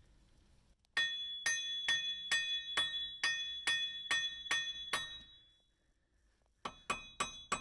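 A steel receiver hitch used as a hammer, striking metal at an outer tie rod end: about ten ringing metal-on-metal blows, roughly two a second, then a pause and a quicker run of blows near the end. The blows are meant to shock the tapered tie rod stud loose, and it has not come free.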